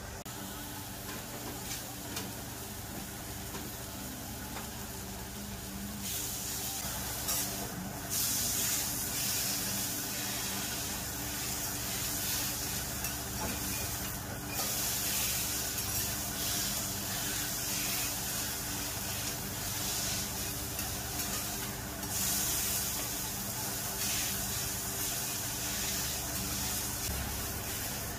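Game meat sizzling on a hot flat iron griddle, a loud steady hiss that comes in about six seconds in and carries on with a few short dips as the pieces are turned with metal spatulas.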